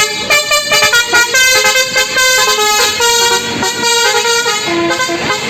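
Indonesian 'telolet' multi-tone bus air horn, a Basuri type, playing a tune: a quick run of loud stepped notes, several pitches at once, changing every fraction of a second.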